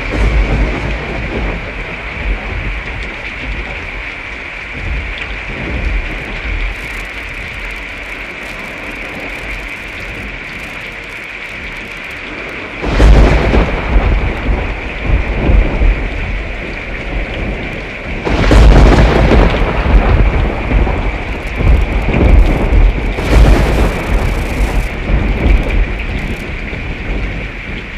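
Steady rain falling through a thunderstorm, with rolling thunder: a short rumble at the very start, then loud peals of thunder about halfway through, again about two-thirds in, and once more near the end, each rumbling on for several seconds.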